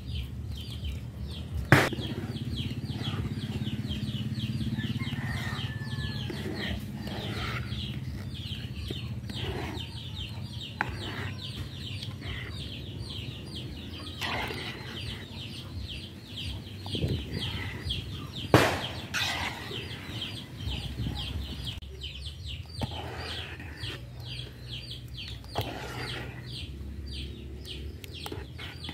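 Chickens clucking, with a constant chatter of short high calls over a steady low hum. Two sharp knocks stand out, one about two seconds in and one about two-thirds of the way through.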